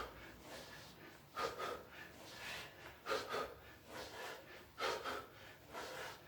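A man's hard, breathy exhales and grunting with effort as he works through sit-ups with punches, one every second and a half to two seconds.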